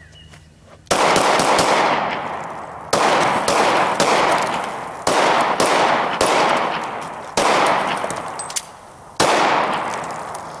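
A string of about seven pistol shots, the first about a second in and the rest roughly a second apart with a longer pause before the last. Each shot rings out in a long, fading echo.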